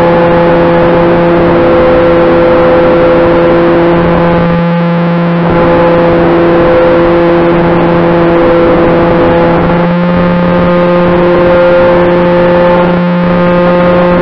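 Twin-engine RC model airplane's motors and propellers droning at a steady pitch in flight, with rushing air, dipping briefly twice as the throttle eases.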